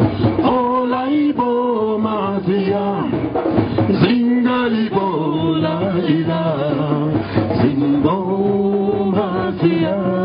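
Music: a melody of held notes that step and waver.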